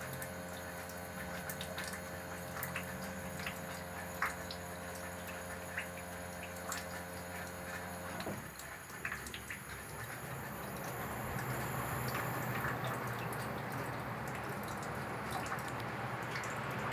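Haier air conditioner during its defrost cycle: a steady machine hum with scattered drips and ticks of meltwater. The hum cuts off suddenly about eight seconds in, and a rushing, hissing noise builds after it.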